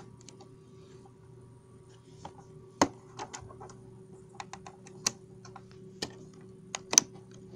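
Irregular plastic clicks and knocks from the switches and controls of a 1997 Simpsons clock radio being worked to turn the radio on, about a dozen, the loudest about three seconds in and near the end.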